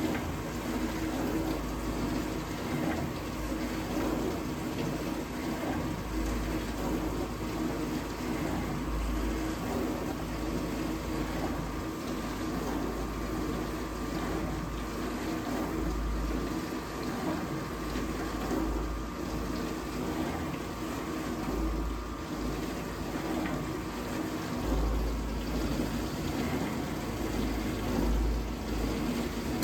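Vintage dishwasher running a wash cycle: a steady pump-motor hum over the rush of water spraying inside the tub. The pump sounds as if it could be restricted, the water no longer hitting the tub at full force.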